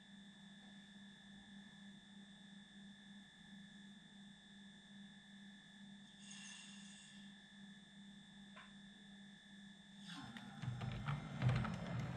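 Faint steady electrical hum with several high whining tones. About ten seconds in, a 00 gauge model train moves off: its motor and wheels rattle and click over the track, much louder than the hum.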